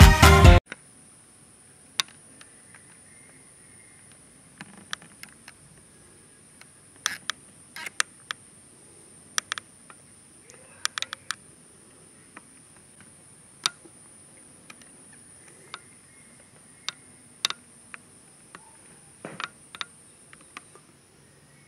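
A steady high-pitched insect drone, with scattered short sharp clicks throughout. Music cuts off suddenly about half a second in.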